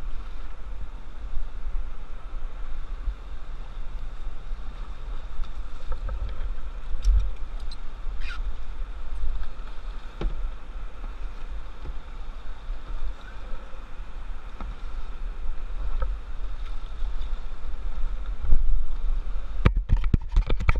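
Steady low rush of river water around a solo whitewater canoe, with a few separate knocks of a paddle against the hull. A quick run of sharp clicks and knocks comes near the end.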